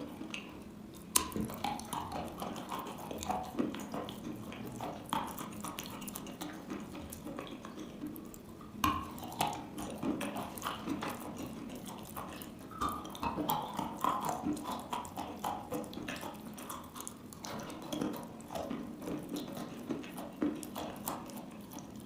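Close-miked biting and chewing of wet chalk: a dense, irregular run of small wet crunches and crackles, with a sharper snap about a second in and another about nine seconds in.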